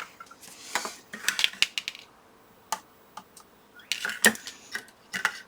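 Small hand tools clicking and scraping against a circuit board and the legs of a power switch as they are pried and pulled out. A short scraping rustle comes first, then a string of sharp, irregular small clicks.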